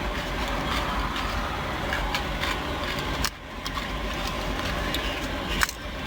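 Crunchy chips being chewed close to the microphone, a scatter of short sharp crunches over a steady low rumble of traffic.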